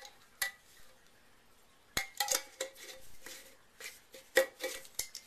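Scattered clinks and knocks of glassware and containers being handled on a tabletop, each short with a brief ring; one near the start, a cluster about two seconds in, and more just past four seconds.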